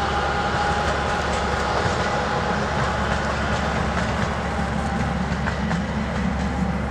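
ČKD class 705.9 narrow-gauge diesel locomotive and its passenger coach passing by: the engine runs with a steady whine over a low rumble. The whine fades in the second half as the locomotive moves off, and the wheels click over the rail joints.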